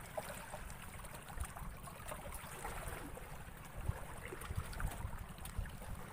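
Water lapping and trickling around a small fishing boat, with wind rumbling on the microphone and scattered small clicks and knocks.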